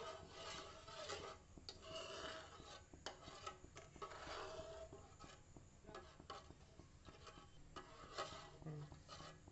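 A spoon stirring and scraping in a pot of hot milk as diluted vinegar is added to split it into curds and whey: faint, irregular rasping strokes with small clicks.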